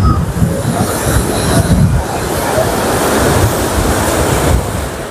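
Rough sea surf crashing and washing in, a loud continuous rush of breaking waves with heavy low rumbling surges.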